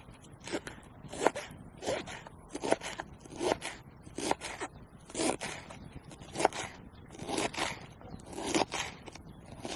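A hand tool working wood in regular scraping strokes, about one every three-quarters of a second.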